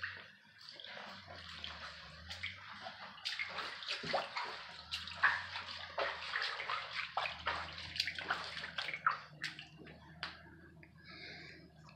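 Flood water splashing and trickling, with many small sharp splashes, busiest in the middle, over a steady low hum.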